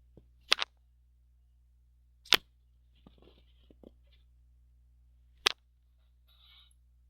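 Three sharp clicks, plausibly a computer mouse button pressed close to the microphone: about half a second in (doubled), a little after two seconds, and about five and a half seconds in, with a few fainter ticks between them.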